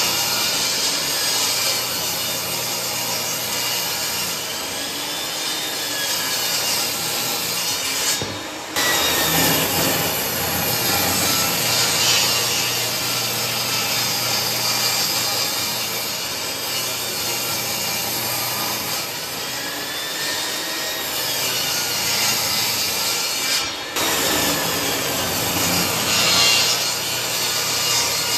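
Portable table saw ripping pine pallet boards along the fence: the motor runs steadily while the blade cuts, its pitch sagging and recovering under the load. There are two brief drops, about eight seconds in and near twenty-four seconds.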